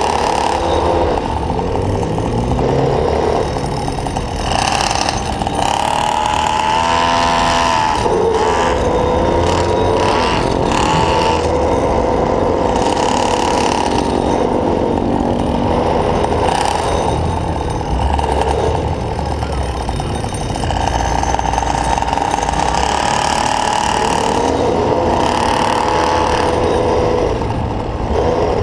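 Small gas engine of a stand-up motor scooter running under way, its pitch rising and falling as the throttle is worked, with a couple of clear revs in the first half.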